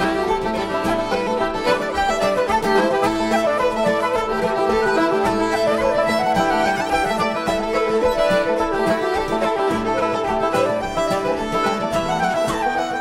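Fiddle, five-string banjo, acoustic guitar and upright bass playing an Irish and old-time instrumental tune together, with the fiddle leading the melody.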